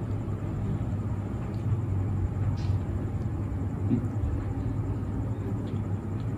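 A steady low hum throughout, with faint chewing and a few soft mouth clicks of a person eating a shawarma wrap.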